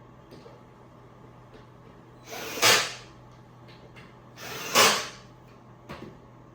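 Two short scraping, sliding noises about two seconds apart, each swelling to a peak and lasting under a second, with a few light knocks in between: bed-frame boards being handled and slid against each other.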